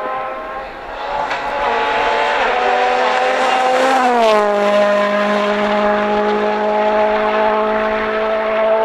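Ford Fiesta RS WRC rally car's turbocharged four-cylinder engine running hard at high revs. The pitch dips briefly about two and a half seconds in, glides down sharply about four seconds in, then holds steady.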